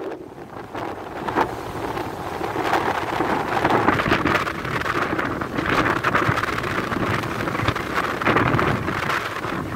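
Wind buffeting the microphone over the rush of rough sea breaking and foaming along a cargo ship's hull, swelling and easing as the waves pass.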